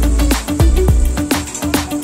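Background music with a steady beat: an electronic track with deep bass and drum hits about three times a second.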